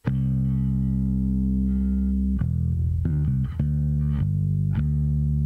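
Electric bass guitar playing a line of long held notes with a quicker run of notes after the middle, squashed by heavy over-compression so every note sits at almost the same level. Over-compression of this kind brings the noise floor up between the notes.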